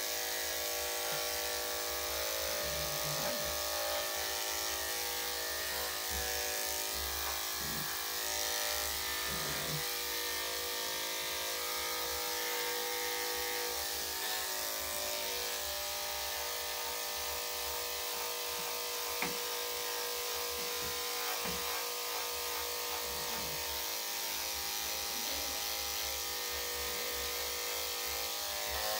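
Electric dog-grooming clippers with a #10 blade running as they shave through damp fur, a steady motor hum.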